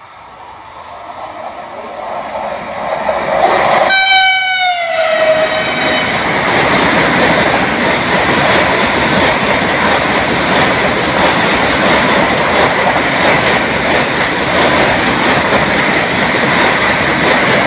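Patna–Howrah Vande Bharat Express electric trainset approaching fast at about 125 km/h, growing louder. About four seconds in it sounds one horn blast that drops in pitch as it passes. Then the loud, steady rush of the train going by at speed.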